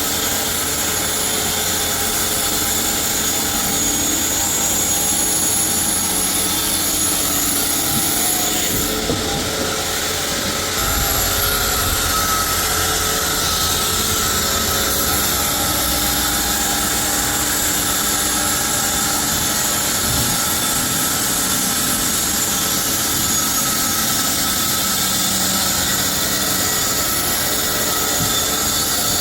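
Sawmill machinery running steadily: a continuous loud mechanical noise with high-pitched whining tones, which shift about nine to eleven seconds in.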